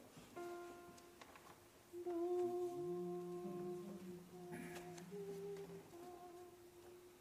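Men's choir humming their starting notes before a song: one held note first, then a lower voice sliding up to join it and holding beneath.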